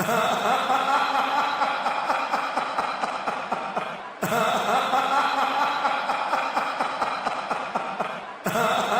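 The Fiend's attack sound effect: a distorted, menacing laugh that loops, restarting abruptly about every four seconds.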